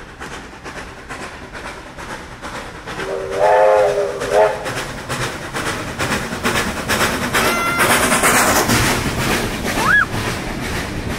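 NSW 32-class steam locomotive 3265 working hard under a train, its exhaust beats making a steady rapid rhythm. About three seconds in, its steam whistle sounds one long chord-like blast, then a short one. The loudest rush of steam and running noise comes as the engine passes close by.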